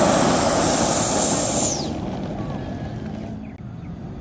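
The 70mm 12-blade electric ducted fan of a foam F-16 RC jet whining loudly at high throttle on its takeoff run. Less than two seconds in, the whine falls away sharply and gives way to much quieter outdoor background.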